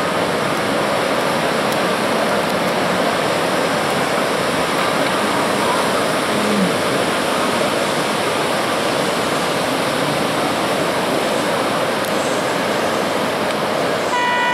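Steady rush of heavy surf breaking on the beach. Near the end a horn begins sounding one steady note, the signal that the heat's clock has run out.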